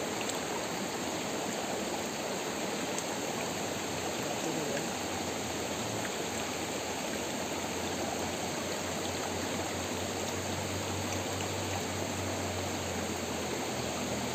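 Steady rush of water running in a small stream.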